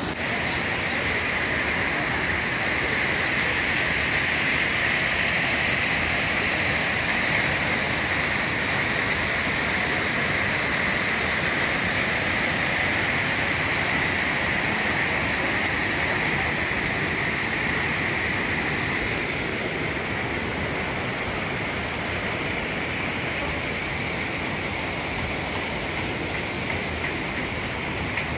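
Curug Mandala waterfall and its river rushing steadily, a little quieter in the last third.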